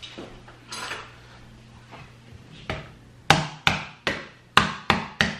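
Lid of a sugar canister knocked over and over with the end of a spoon to punch in its push-to-open spout: from about halfway in, about seven sharp knocks, roughly three a second.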